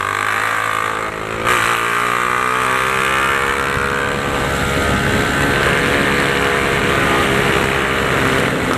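Honda CG 150 Titan's single-cylinder four-stroke engine running through a straight-through exhaust pipe, heard from the bike while riding. About a second and a half in it gets louder and its pitch climbs as the throttle opens, then holds steady.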